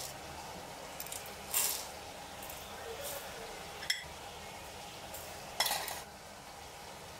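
Whole spice seeds poured into an empty stainless steel mixer-grinder jar, pattering and rattling on the metal: a short pour about a second and a half in, a single sharp click near four seconds, and a second pour near six seconds.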